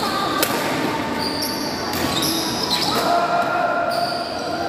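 Badminton rally in an echoing sports hall: a racket strikes the shuttlecock with a sharp crack about half a second in, followed by several short squeaks of sneakers on the court floor, over a background of voices.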